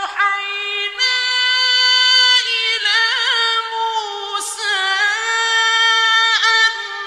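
A male Quran reciter's voice in slow, melodic mujawwad recitation, holding long high notes with wavering ornaments and brief breaks between phrases.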